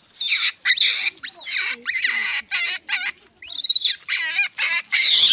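Young gray langur screaming: about ten loud, high-pitched, wavering shrieks in quick succession, with short breaks between them.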